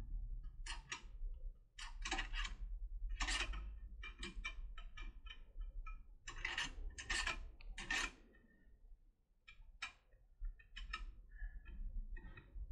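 Turbo decoder pick working the levers of a cam/border lever lock: irregular metallic clicks and scrapes as it catches on the traps (false hooks) and slips past them, with a short pause about nine seconds in.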